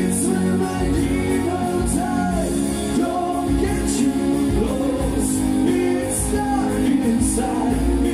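Two men singing a song together over a strummed acoustic guitar and an electric guitar.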